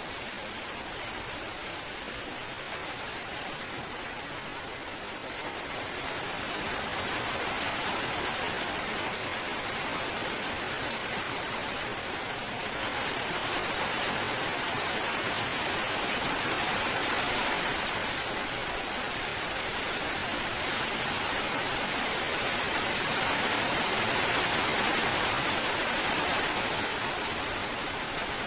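Steady rain falling as an even hiss of countless drops, with no single drops standing out. It grows heavier about six seconds in and swells louder again a couple of times.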